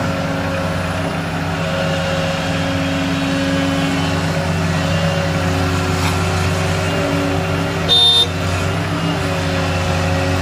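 Volvo EC160C hydraulic excavator's diesel engine running steadily as it swings a bucket of clay over a dump truck and dumps it. About eight seconds in there is a short, sharp, loud noise.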